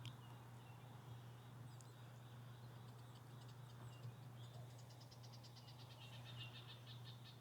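Faint songbird calls: a few scattered high chirps, then a fast trill of evenly repeated high notes, about eight a second, starting a little past halfway, over a steady low hum.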